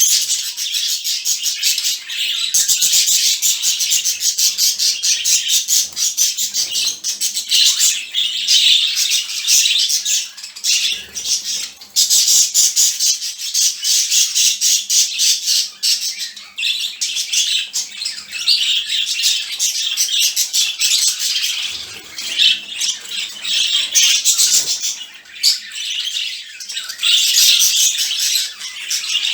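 A flock of budgerigars chattering and squawking all at once, in their morning wake-up calling: a dense, unbroken din of fast, high twittering calls.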